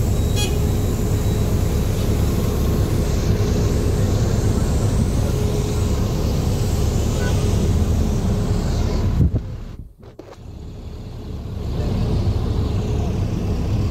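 Steady rumble of a moving open-top double-decker bus and the city traffic around it, heard from the open upper deck. The noise drops away sharply about nine seconds in and builds back up over the next few seconds.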